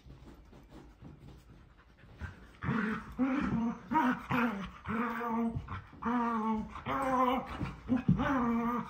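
A husky "talking": a series of short, drawn-out whining moans, pitched and bending up and down, starting about two and a half seconds in and repeating about eight times.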